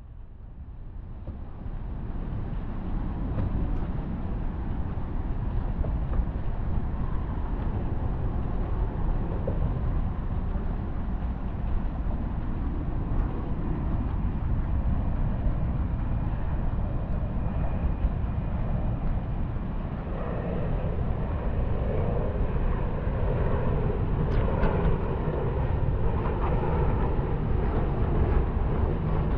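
Steady wind rush and rumble on the microphone of a moving ride, fading in at the start and growing rougher about two-thirds of the way through.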